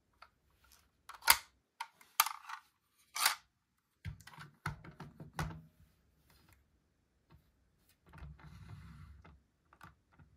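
Handling noise of a 1/24 diecast Fiat Doblo Malibu model: a few sharp clicks from its opening doors and tailgate, the loudest about a second in. Then soft knocks and rubbing as the model is set down and moved on the tabletop, with a rustle near the end.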